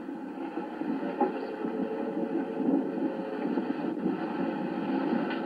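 Steady, muffled wind and sea noise aboard a sailing ship, with a faint steady hum underneath and one small click about a second in.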